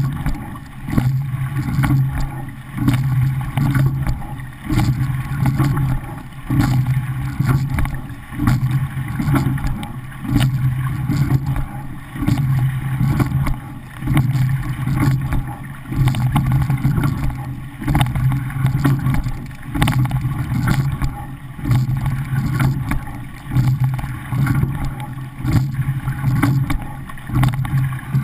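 Water rushing along the hull of a racing pair rowing shell, with wind on the microphone. The sound swells and fades with each stroke, about once every second and a half at race pace, and sharp clicks come through it.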